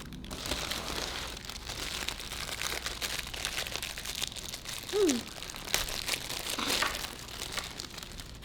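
Paper fast-food wrapper crinkling and rustling as it is handled and opened. A brief falling voice sound comes about five seconds in.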